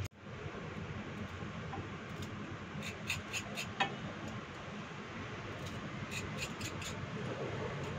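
Knife scraping and cutting fresh mackerel over a steel bowl, with light sharp clicks in two short clusters, about three and six seconds in, against a steady rush of background noise.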